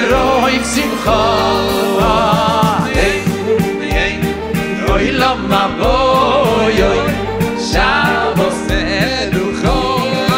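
Live Chassidic-style song: a solo voice singing with vibrato over a band, with drums keeping a steady beat under a bass line.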